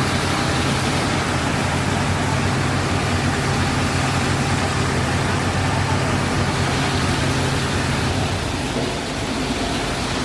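Concrete transit-mixer truck running steadily while unloading concrete: a constant diesel engine hum under an even rushing noise from the turning drum and the pour.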